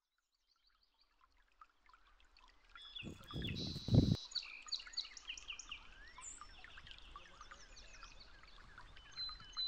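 Many small birds chirping and twittering, fading in from near silence. A brief low rumble swells about three seconds in and peaks at four, the loudest moment.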